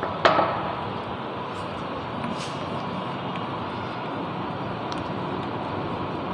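Chalk tapping and scratching on a blackboard as a word is written, over a steady background noise. A sharp knock with a short ring about a quarter second in is the loudest sound.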